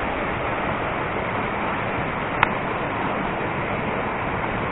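Steady outdoor rushing noise with no pitch, with one short sharp click about halfway through.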